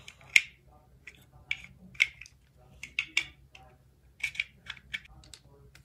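Light, irregular clicks and taps of a cardboard cutout and a plastic ruler being handled and set in place, about a dozen sharp ticks.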